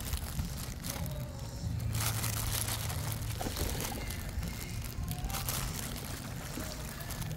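Water splashing and sloshing in the shallows as ducks paddle and feed, over a steady low wind rumble on the microphone.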